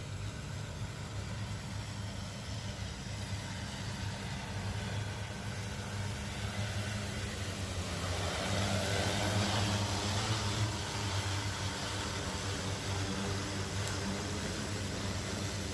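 Agricultural spraying drone's propellers droning steadily, with a rush of rotor noise that swells as it passes closest about halfway through, then eases off.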